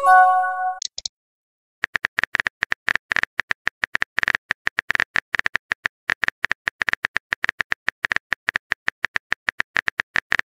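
A short chat-app notification chime of a few steady notes as a new message pops in. After a brief gap, a fast run of virtual-keyboard typing clicks, several per second, as a text message is typed out.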